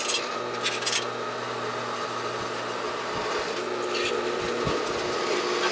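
Benchtop drill press running steadily while its twist bit cuts through the wall of a round metal tube, the bit scraping and chattering in the metal.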